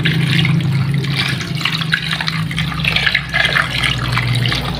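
Water poured in a steady stream from a plastic jug into an aluminium pot of peeled sweet potato chunks, splashing over the potatoes as the pot fills.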